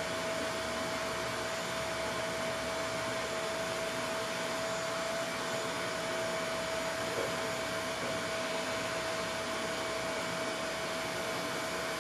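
Steady whirring of a running motor-driven blower, with a constant mid-pitched hum over an even hiss.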